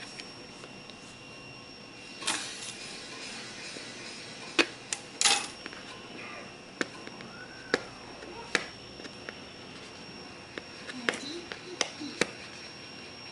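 A cardboard Samsung Galaxy phone box being handled and opened: scattered clicks and taps of fingernails and fingers on the box, with a brief scraping rustle about five seconds in.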